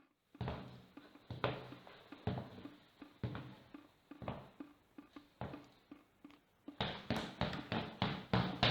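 A series of dull thuds, spaced and uneven at first, then a fast, even run of about four a second starting about seven seconds in.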